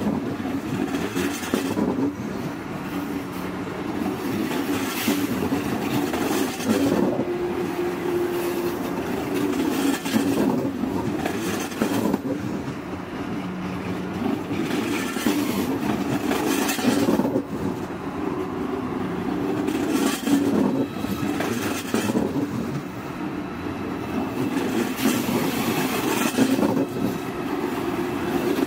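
Deutsche Bahn ICE electric train rolling slowly along a station platform: a steady rumble from the running gear, with sharp wheel clacks over the track at irregular intervals.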